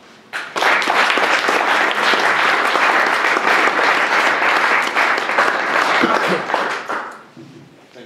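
Audience applauding. The applause starts sharply about half a second in, holds steady and loud, then dies away near the end.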